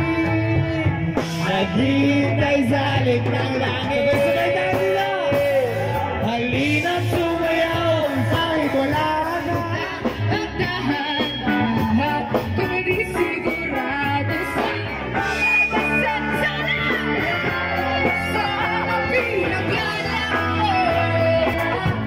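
Live rock band playing with a singer: electric guitars and drum kit, loud and continuous.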